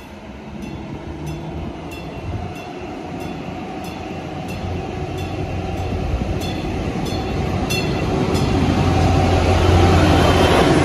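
Stadler GTW diesel multiple unit pulling in alongside the platform, its engine hum and wheel noise growing louder as it passes close by near the end. A bell dings about twice a second through most of it, stopping a few seconds before the end.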